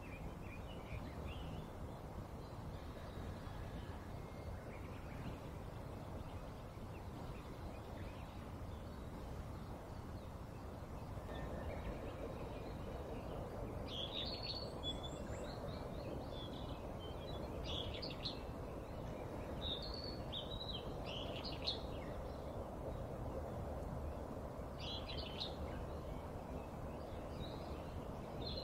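Steady background noise, with short high chirps of small birds coming in scattered clusters from about halfway through.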